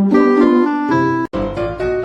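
Background music led by a piano or keyboard melody; it breaks off for an instant a little past halfway, then resumes with a bass line underneath.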